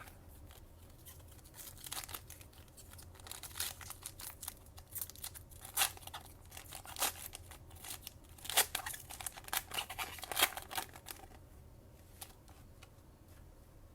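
Foil trading-card pack wrapper being handled and torn open, with irregular crinkling and crackling that thins out near the end.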